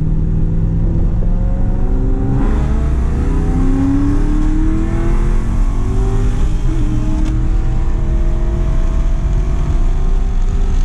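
Ford FG Falcon XR8's 5.4-litre V8 under hard acceleration. The engine runs at a steady rumble, then about two seconds in it gets louder and its note climbs steadily in pitch for several seconds.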